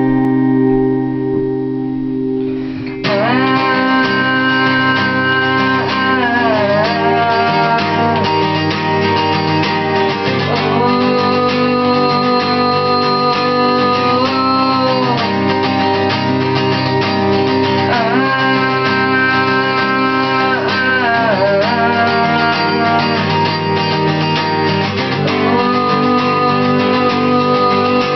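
Acoustic guitar played by hand: a chord left ringing, then steady strumming from about three seconds in.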